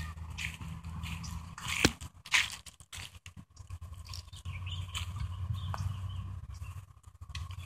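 Footsteps of someone walking on grass and a dirt path, at a steady pace, with a steady low rumble underneath. There are two louder knocks about two seconds in.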